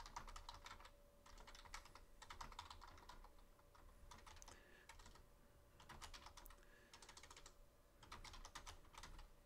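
Faint computer keyboard typing in short bursts of keystrokes, with brief pauses between the bursts.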